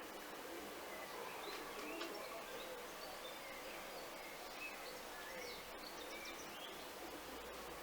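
Birds chirping in short rising and falling calls over a steady background hiss.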